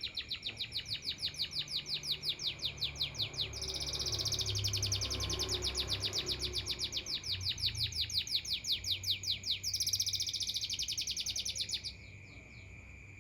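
A songbird singing a long, fast trill of repeated downward-sweeping notes, about eight a second, which grows louder in the middle and stops abruptly about twelve seconds in. A steady high-pitched tone continues underneath.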